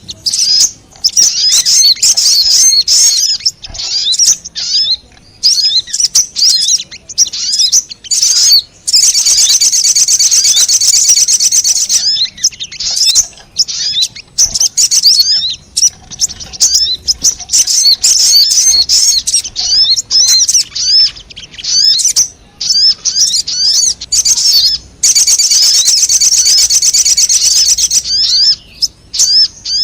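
Little spiderhunter (sogon) calls played as a lure: rapid, loud, high-pitched chattering chips in quick succession. About 9 seconds in and again about 25 seconds in, these run together into a dense, unbroken trill for roughly three seconds.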